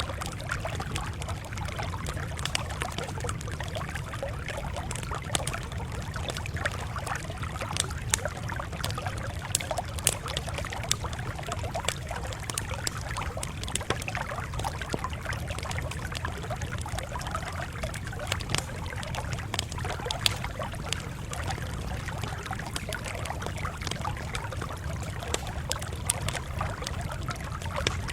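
Campfire crackling, with frequent sharp pops scattered irregularly over a steady low rumble.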